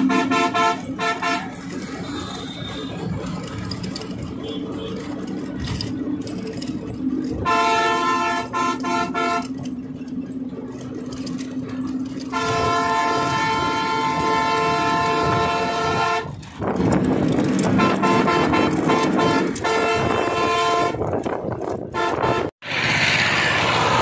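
Vehicle horn blown in long, steady blasts of roughly two, four and two and a half seconds, with a few short toots near the start, over the steady hum of a bus's engine and road noise. Near the end the sound cuts off abruptly and a rushing noise follows.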